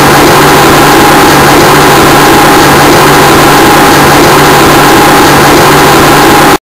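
Tow boat's engine running loud and steady at an even pitch, recorded so loud it nearly saturates; it cuts off suddenly at the end.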